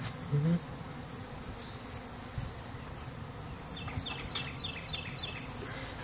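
Honey bee swarm buzzing: the steady hum of many bees clustered on a log and flying around it. A quick run of high, falling chirps sounds about four seconds in.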